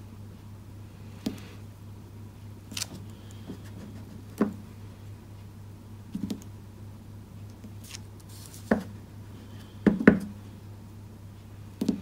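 Clear acrylic stamp block knocking and tapping on a craft table as a rubber stamp is inked on an ink pad and pressed onto cardstock: a handful of separate short knocks, two of them close together near the end.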